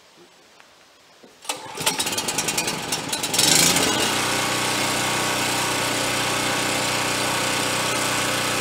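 Portable generator starting about a second and a half in: its engine sputters and fires unevenly for about two seconds, surges, then settles into a steady run.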